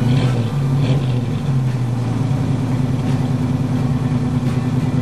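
A 1965 Ford Mustang's engine idling steadily.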